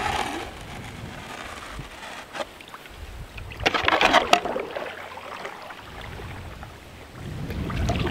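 Canoe paddles dipping and splashing in calm river water as a canoe pulls away from the bank, with a cluster of splashy strokes about four seconds in. A low wind rumble on the microphone builds near the end.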